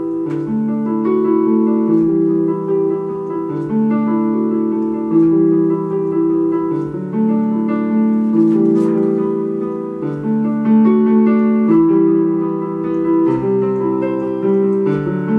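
Yamaha YPG-235 portable keyboard playing simple block chords on its piano voice, each chord held for about a second before the next.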